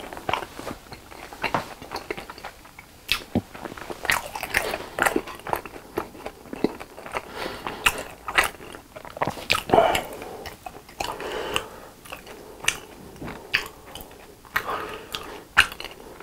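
Close-up chewing of BHC cheese balls, fried dough balls with a soft cheese filling: irregular wet mouth clicks and smacks.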